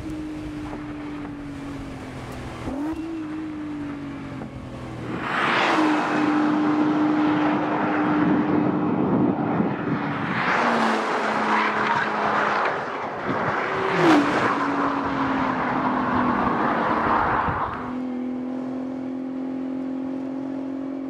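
Nissan GT-R's twin-turbo V6 running at a steady pitch, then getting much louder under hard acceleration for about twelve seconds, its pitch dropping at gear changes, then settling into a steady idle near the end.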